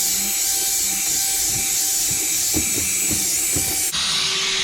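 A drill spinning a 2000-grit sanding pad against a wet plastic headlight lens: a steady motor whine over a loud rubbing hiss. About four seconds in, the sound changes abruptly to a different steady pitch with less hiss.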